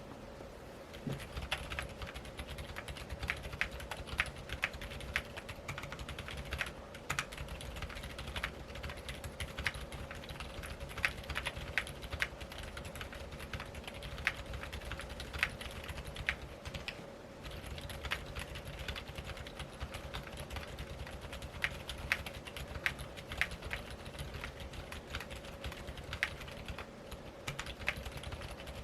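Typing on a Keychron Q2 mechanical keyboard with TTC Silent Bluish White 45 g switches on a steel plate and GMK keycaps: a steady stream of quick key presses, some louder than others, with a short pause about halfway through. A faint steady hum runs underneath.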